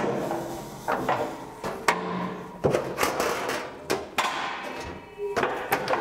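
Tin Knocker hand-operated cleat bender folding a half-inch flange on a sheet-metal plenum top. A string of sharp metallic clanks, roughly every half second to a second, as the bending leaf is swung and knocks back, with the thin sheet rattling and ringing between strokes.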